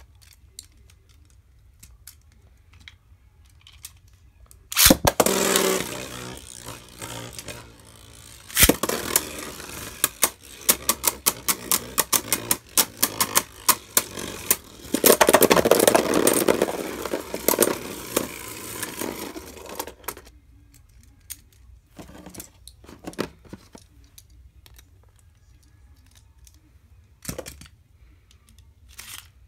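Two Beyblade Burst tops, Arc Bahamut and Maximum Garuda, launched into a plastic stadium about five seconds in. They spin, scrape and clash with rapid clicking hits for about fifteen seconds, then stop suddenly; a few scattered clicks follow.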